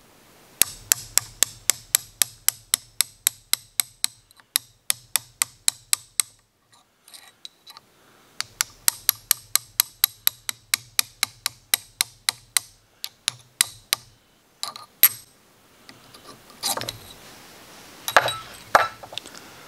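A small hammer tapping a pin punch in rapid light strikes, about four a second, driving the steel pad-retaining pins out of a brake caliper held in a vise. There are two long runs of tapping with a short pause between, then a couple of harder blows and some rattling and handling of the metal near the end.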